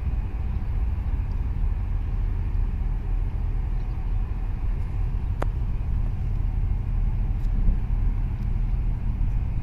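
Wind buffeting the microphone on an open seawall: a steady, fluttering low rumble, with one faint click about halfway through.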